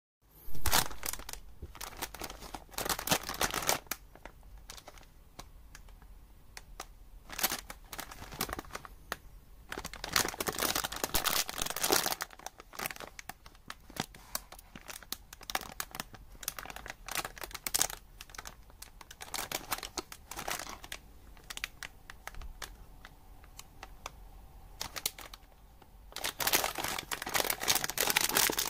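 Plastic snack wrapper of a Tohato All Raisin biscuit pack crinkling in repeated bursts as it is handled by hand, then rustling continuously near the end as the pack is torn open.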